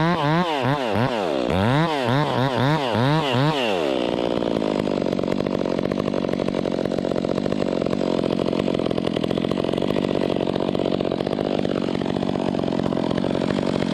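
Two-stroke chainsaw revved up and down several times in quick succession, then held at a steady high speed for about ten seconds, stopping abruptly near the end.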